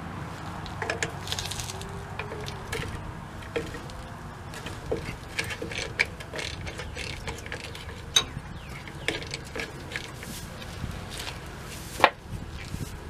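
Scattered metal clicks and clinks of hand tools and parts on a truck's rear drum brake backing plate during brake shoe removal, with two sharper clanks, one past the middle and the loudest about a second before the end.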